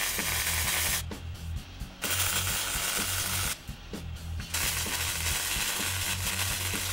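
Wire-feed welder arc crackling on steel in three runs with short pauses between, the first lasting about a second, the second starting about two seconds in, the third from about four and a half seconds in. Background music with a steady beat plays underneath.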